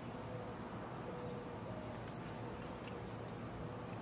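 Northern mockingbird chirps: three short, high chirps about a second apart in the second half, over a steady thin high-pitched hum.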